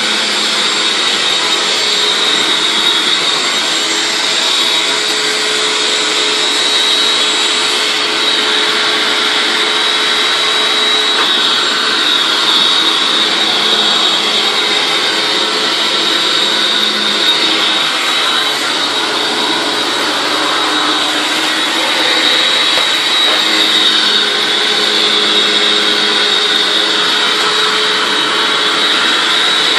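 Hoover WindTunnel Anniversary Edition self-propelled upright vacuum cleaner running steadily: a rush of air with a constant high whine over it.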